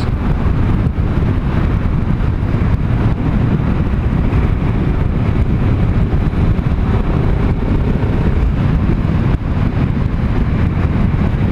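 Steady wind noise buffeting the GoPro's microphone on a moving motorcycle, with the bike's running noise underneath. The rider puts the constant wind down to the Honda CBR500R's low windscreen, which throws the wind straight into his face.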